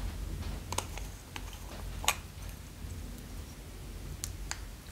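Small plastic lip balm tub being handled and opened by hand: a few sharp, separate plastic clicks a second or two apart.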